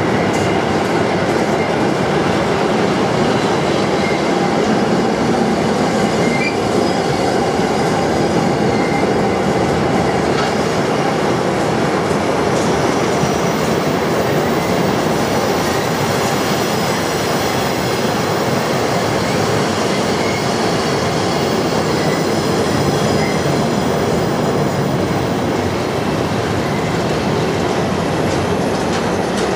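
Double-deck car-carrier freight wagons running past at speed close by: a steady, loud rumble and rattle of wheels on the rails.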